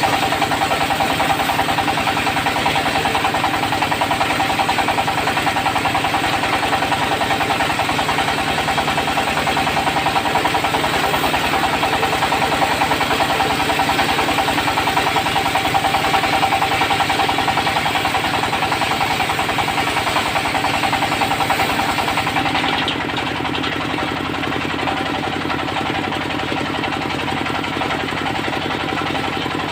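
Diesel-driven circular sawmill running steadily with a pulsing engine note, its blade sawing teak. About three quarters of the way through, the sound drops a little and grows less hissy as the machine runs on.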